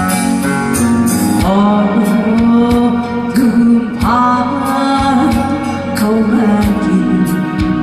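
A pumba performer singing long held notes over live-style backing music with a steady beat.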